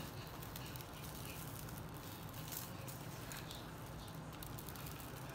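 Faint soft rustling and patting of a gloved hand rubbing dry seasoning into a raw brisket in a foil pan, over a low steady hum.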